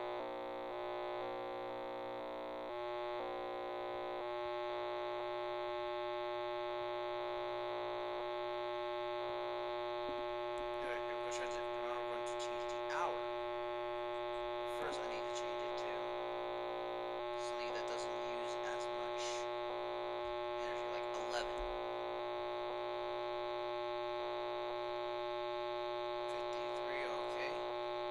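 Circuit-bent radio giving out a steady, buzzy electronic drone of many stacked tones. Its tone mix shifts several times as the circuit is bridged. Bursts of glitchy chirps and crackles come through in the middle and again near the end.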